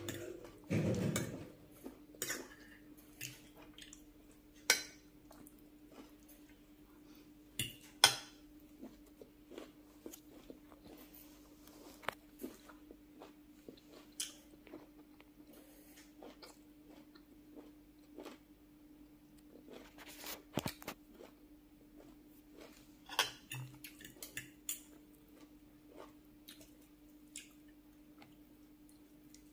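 Close-up eating sounds: chewing a mouthful of rice and vegetable curry, with scattered sharp clicks and scrapes of a metal fork and spoon against a glass bowl. A faint steady hum runs underneath.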